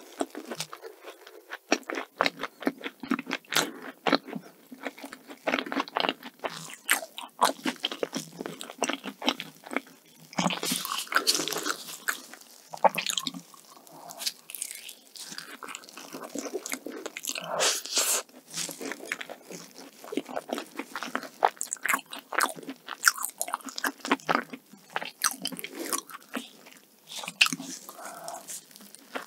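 Close-miked eating of an egg tart: bites and chewing, with the flaky pastry crust crunching and crackling in quick, sharp clicks throughout.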